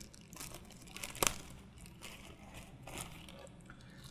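Clear plastic bag crinkling and crackling as a boxed radiosonde is pulled out of it, with one sharp crack about a second in.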